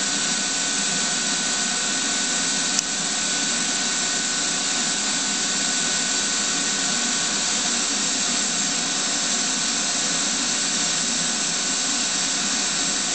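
TIG welding arc on stainless steel running steadily, a smooth, even hiss with a faint steady high tone in it. A single sharp click about three seconds in.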